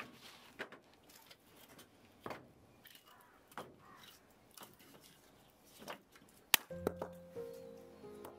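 Split firewood logs knocking and clunking now and then as they are handled and stacked by hand. About six and a half seconds in comes a single sharp crack, and background music starts just after it.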